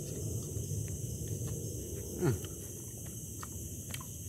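A man chewing a grilled sago worm, with faint scattered clicks of the chewing and one short falling 'mm' from his voice about two seconds in.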